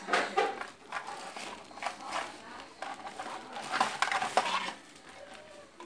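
Hard plastic parts of a toy L96 sniper rifle being handled, making irregular clicks, knocks and clatter. The clatter is loudest just after the start and again around four seconds in.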